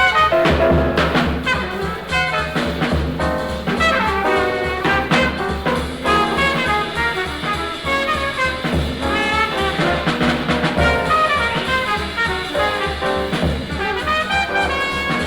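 Jazz music: horns playing lines over a steady bass pulse.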